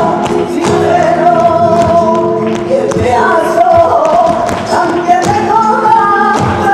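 Flamenco music in soleá por bulerías style, with a singer's wavering, drawn-out cante and many sharp taps from the dancers' footwork (zapateado).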